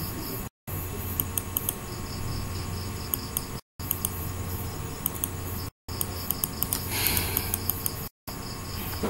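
Computer mouse scroll wheel clicking in short runs over a steady microphone hiss and low hum, with the sound cutting out to silence for a moment four times.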